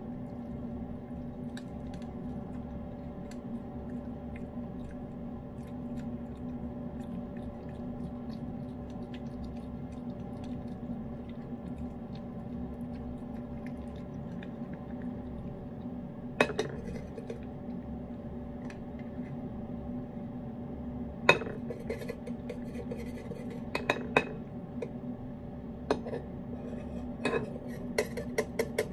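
A metal utensil clinking and scraping against an open cat food can and a ceramic bowl as wet food is scooped out: one sharp clink about halfway through, then clusters of clinks in the last third. A steady low hum runs underneath.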